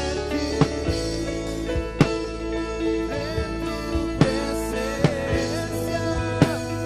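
Christian worship music: sustained chords and a bending melody line over scattered drum kit hits.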